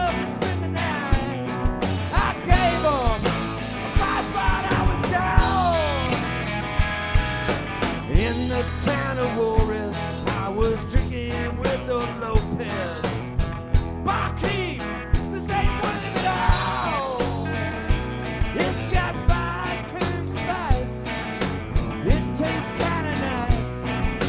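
Live cowpunk rock band playing an instrumental stretch between sung verses: electric guitar lines sliding in pitch over drum kit and bass, with a steady beat.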